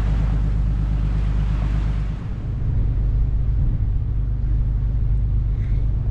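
Nordhavn 55 trawler under way: a steady low drone from its diesel engine, with wind and water noise over it that eases a little after about two seconds.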